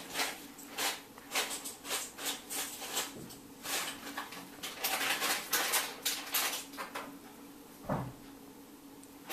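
A cat licking and pawing a sheer net curtain: short rasping, rustling strokes about two to three a second, easing off after about seven seconds, with one low thump near the end.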